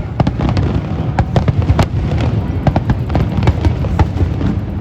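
Aerial fireworks bursting, with many quick sharp pops and crackles over a continuous deep rumble of booms.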